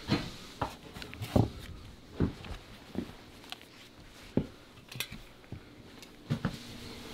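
Footsteps of leather boots on a wooden floor, irregular dull thumps with small knocks and clicks of things being handled.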